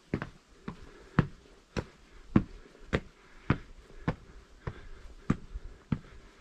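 A hiker's footsteps, steady thuds at a walking pace of a little under two steps a second.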